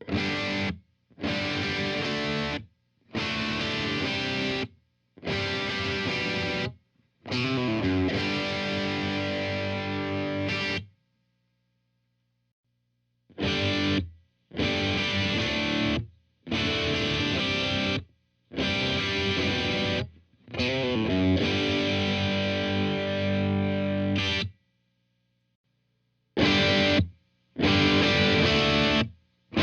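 Electric guitar played through a Blackstar Studio 10 6L6 valve combo with the gain cranked, sounding heavily distorted: chords are held for one and a half to three and a half seconds and then cut off, about ten times. A faint low amp hum is heard between the chords in the middle.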